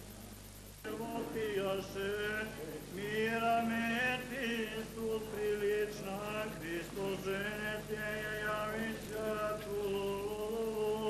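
Voices singing a slow unaccompanied chant, starting about a second in, with long held notes over a steady low hum.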